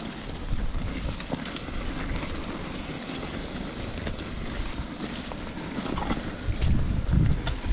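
Wind rumbling on the microphone in an open field, steady at first and swelling louder about a second before the end.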